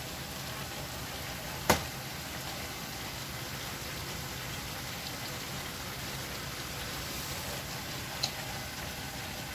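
A pot of upo (bottle gourd) and ground beef boiling with a steady hiss, stirred with a wooden spoon that knocks against the pot twice: sharply about two seconds in, and more lightly near the end.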